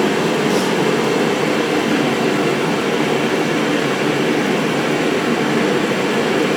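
An air blower running steadily, an even, unbroken drone with no change in pitch or level.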